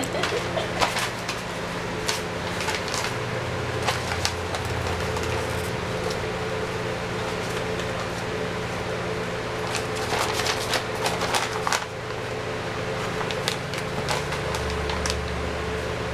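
Sheet of paper rustling and crinkling in short bursts of scratches as a kitten pounces on it and burrows under it, over a steady background hum.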